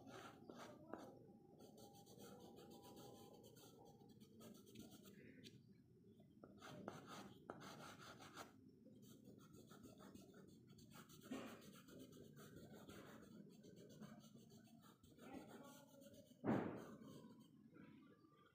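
Faint scratching and rubbing of a soft pastel stick on paper, with fingers smudging the pastel to blend it. One louder short thump comes near the end.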